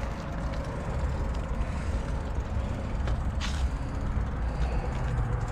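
Steady low rumble of road traffic, with one short hiss about three and a half seconds in.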